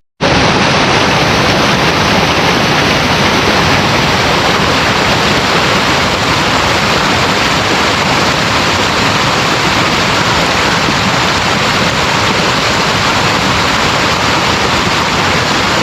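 Loud, steady rush of flowing water, like a stream or waterfall close to the microphone, an even hiss with no pauses that cuts in and cuts off suddenly.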